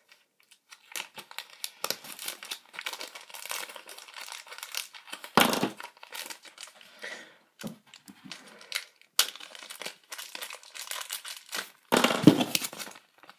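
Packaging crinkling and rustling as it is handled and opened, with louder crackles about five seconds in and again near the end.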